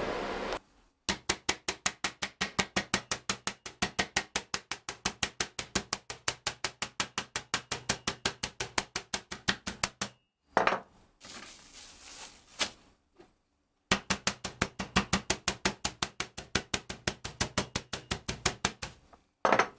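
Wooden meat mallet pounding chops through a plastic bag on a plastic cutting board: rapid, even blows, about four or five a second, in two runs with a pause of a few seconds between them.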